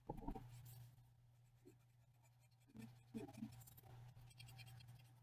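Faint rubbing of a pencil's eraser on lined notebook paper in a few short strokes, erasing stray graphite smudged by finger-blending, over a steady low hum.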